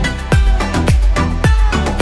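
Background dance music with a deep kick-drum beat about twice a second and crisp percussion over it.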